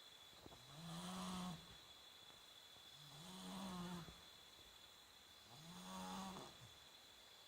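Snoring: three snores about two and a half seconds apart, each lasting about a second with a low, pitched tone.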